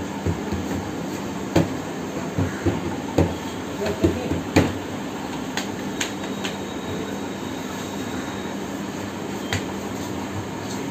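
Sharp metallic clicks and knocks as naan is slapped into a tandoor and worked with metal skewers, over a steady roar with a low hum. The clicks come in a string over the first six seconds or so, with one more near the end.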